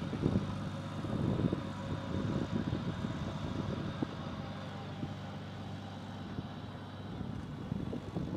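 Terrafugia Transition flying car's engine running at a steady low speed as it drives slowly on the ground, a little quieter in the middle.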